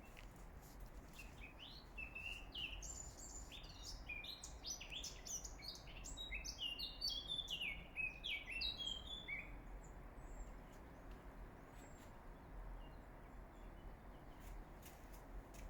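A songbird singing a fast, varied run of chirps and downward-sweeping whistles for about eight seconds, then falling quiet but for a few faint calls.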